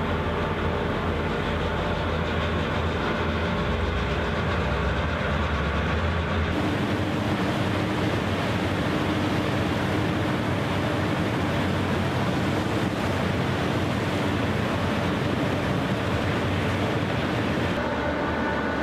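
Harbour tugboat diesel engines running hard under load, with the prop wash churning the water: a steady drone with several steady engine tones. The drone changes its low tones abruptly about six and a half seconds in.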